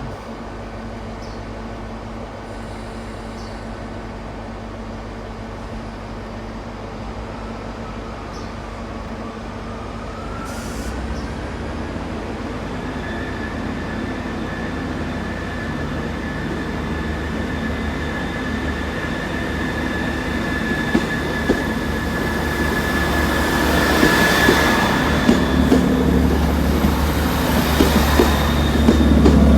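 Diesel passenger train approaching through the station, a low engine rumble growing steadily louder, with a steady high-pitched tone coming in about a third of the way through and strongest near the end.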